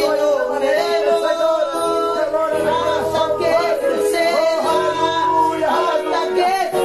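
Worship song sung by a group of voices, with an accompaniment holding steady sustained chords beneath the melody.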